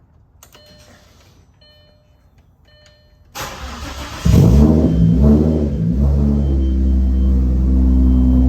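Audi B5 S4's 2.7-litre V6, converted to a single turbo, cranked by the starter about three seconds in and firing a second later, flaring unevenly and then settling into a steady idle. A few faint beeps come before the cranking.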